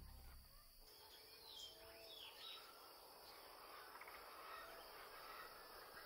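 Faint outdoor desert ambience: a steady high hiss with a few faint bird chirps about one and a half to two and a half seconds in.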